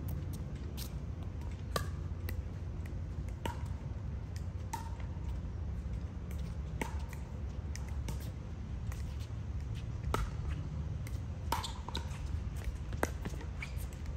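Pickleball paddles striking a plastic pickleball back and forth in a rally: sharp pops every second or two, some with a short ring, over a steady low rumble.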